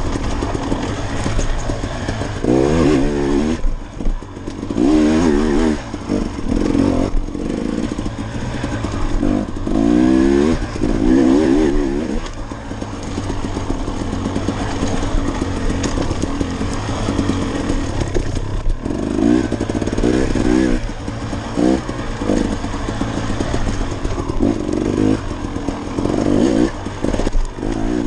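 KTM 300XC two-stroke dirt bike engine under riding load, revving up and dropping back again and again as the throttle is opened and closed.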